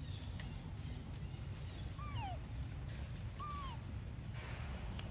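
Young macaque giving two short, falling squeaky calls about a second and a half apart.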